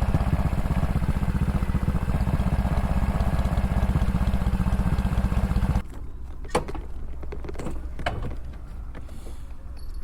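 Honda Super Cub 110 (JA44) single-cylinder four-stroke engine running with an even pulse, cutting off abruptly about six seconds in; a few light clicks and knocks follow over a low rumble.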